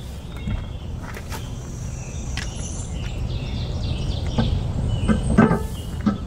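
Steady low wind rumble with birds chirping now and then, and a few sharp clicks and knocks as hands work the hard-shell rooftop tent on the Bronco's roof, the loudest knock near the end.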